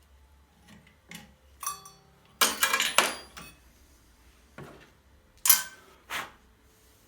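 Several separate knocks and clinks of small hard objects being handled and set down. The loudest cluster comes about two and a half seconds in, followed by a few single sharp hits.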